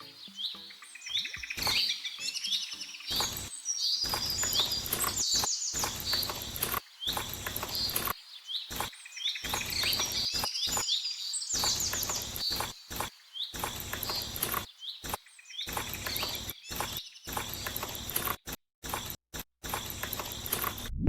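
Small birds chirping in quick repeated calls, over a string of sharp clicks and knocks; the sound cuts out briefly several times near the end.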